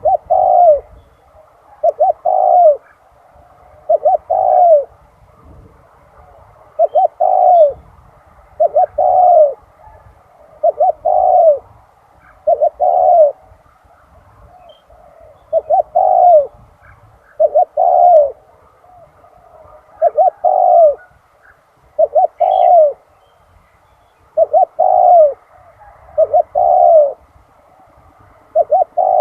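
Spotted dove cooing, a short phrase of two or three coos repeated about every two seconds.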